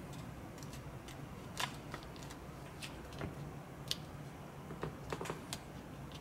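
Scattered small clicks and taps of fingers handling and pressing together small wooden model parts on a cutting mat, over a low steady hum.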